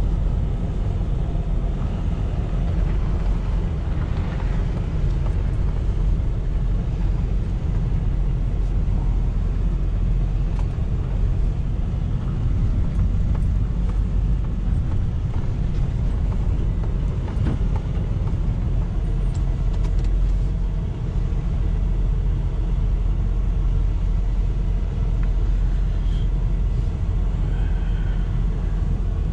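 Steady low rumble of a Ford Super Duty tow truck under way, heard from inside the cab: engine and road noise as it rolls onto a dirt track.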